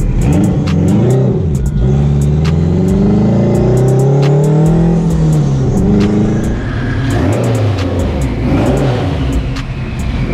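Turbocharged 2.4-litre four-cylinder of a built Dodge Neon SRT-4, heard from inside the cabin while driving. The engine note climbs under acceleration and drops off several times, with sharp clicks over it.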